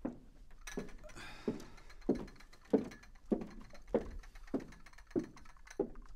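Heavy footsteps on a wooden floor: about ten evenly paced steps, a little under two a second, each a dull thump.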